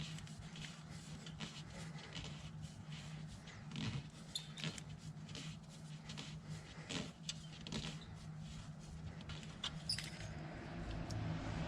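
A wrench working on the alternator's upper 14 mm mounting bolt: a scatter of small metallic clicks and taps as the bolt is loosened, over a faint steady low hum.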